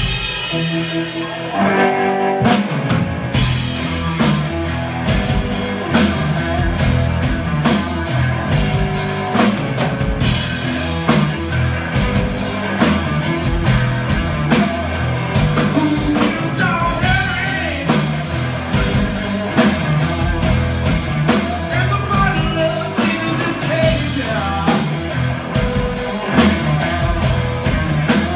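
Live blues-rock band of electric guitar, electric bass and drum kit playing a song, with a steady drum beat under the guitar and bass.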